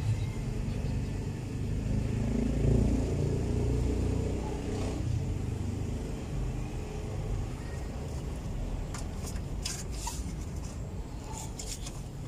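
A low rumble that swells over the first few seconds and then eases. From about nine seconds in come a scatter of short sharp clicks and clinks as hands work the drum brake shoes and their springs.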